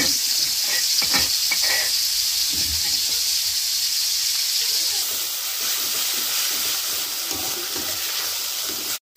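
Ground chili paste sizzling as it fries in oil in a steel wok, stirred with a metal spatula. A few sharp scrapes of the spatula come about a second in, and the sizzle eases a little about halfway through.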